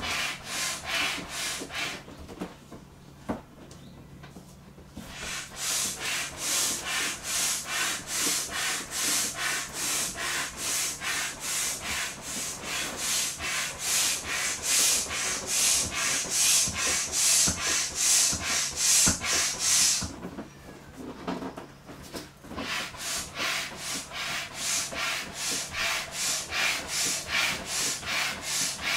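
Hand air pump worked in quick, even strokes, each one a rush of air pushed through the hose into an inflatable vinyl dolphin, about three strokes a second. The pumping pauses twice: for a few seconds soon after the start, and briefly about two-thirds of the way through.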